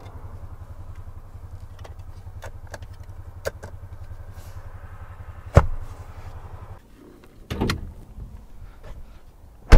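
Clicks and knocks from the leather centre armrest and cup-holder lid of a Mercedes GLB being opened and handled, over a steady low hum in the cabin; one sharp click stands out a little past halfway. After the hum stops there are two soft thumps, then a loud car-door slam at the very end.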